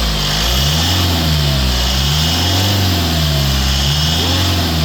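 Mitsubishi Montero Gen 3 engine running with its accessory drive belts removed, a test to find where a whining noise comes from. It is a steady low running sound with a wavering tone that rises and falls about once a second.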